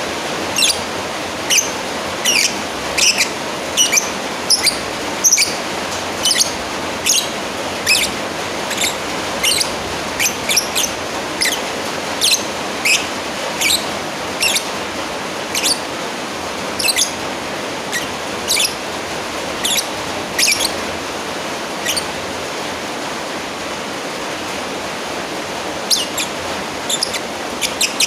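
Lovebird calling a rival with sharp, shrill chirps, one or two a second, pausing for a few seconds near the end. A steady hiss runs underneath.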